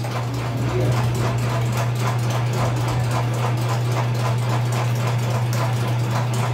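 Batter being beaten by hand in a bowl, an even run of quick strokes at about five a second, over a steady low machine hum.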